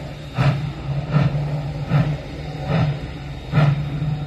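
Steam locomotive's exhaust chuffing at a slow, even beat, about one chuff every 0.8 seconds, as it works under load shoving freight cars. A steady low hum runs beneath the beats.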